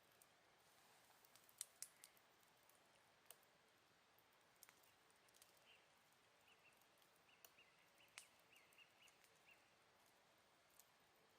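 Faint wood campfire crackling, with scattered sharp pops over a low hiss. Partway through, a run of short high chirps from autumn insects.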